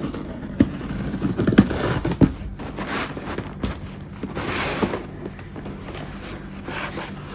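A cardboard parcel being opened and handled: scraping and rustling of cardboard and packaging, with a few sharp knocks.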